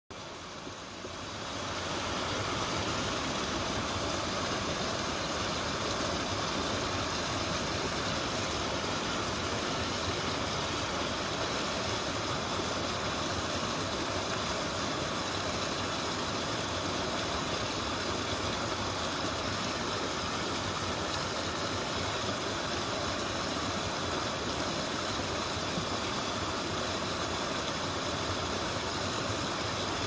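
Small creek waterfall splashing over rocks into a pool: a steady rush of water that swells up over the first two seconds and then holds even.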